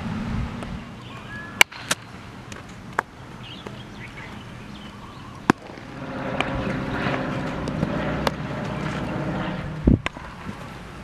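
Scattered sharp pops of a baseball off a bat and into leather gloves in infield practice, over outdoor wind noise. A steady low drone comes up in the middle for a few seconds.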